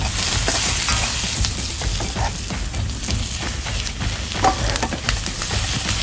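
Food sizzling in a wok while being stir-fried, with scattered clicks of the utensil against the pan.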